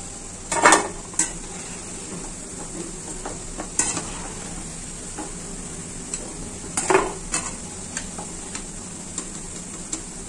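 Besan fritters deep-frying in hot oil with a steady sizzle. A metal slotted spatula knocks and scrapes against the kadai several times as it works the fritters, loudest about a second in, near four seconds and near seven seconds.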